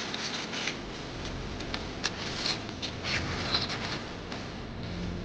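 Eating sounds: irregular small wet clicks and smacks of chewing, with brief rustling scrapes of handling food, over a faint steady background hum.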